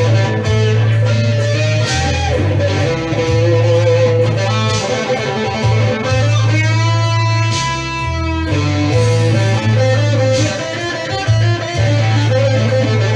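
Electric guitar playing a blues, with a long held note with vibrato about halfway through, over a steady low bass line.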